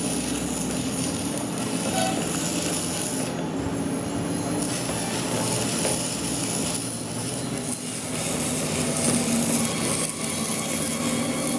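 Continuous rasping of abrasive work on steel, steady in level, with a low steady hum underneath.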